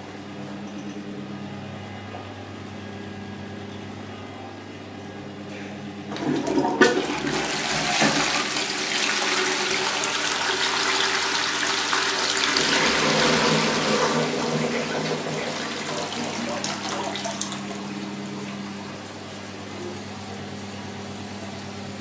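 Toilet flushing from a concealed high-level cistern worked by a wall push button. A rush of water starts suddenly about six seconds in, swells for several seconds, then dies down to a quieter hiss near the end.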